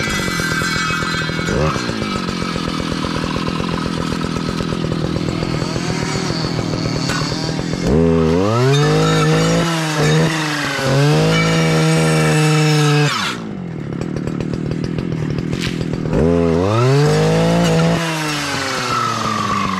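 Stihl clearing saw's two-stroke engine running at idle, revved up to full speed about eight seconds in and held for about five seconds before dropping back. It is revved up again briefly a few seconds later, then falls back to idle near the end.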